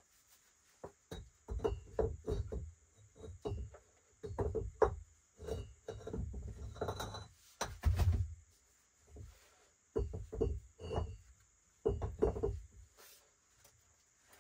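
Loose stones knocking against each other as they are set into a stacked dry-stone wall, in several clusters of clunks with short pauses between.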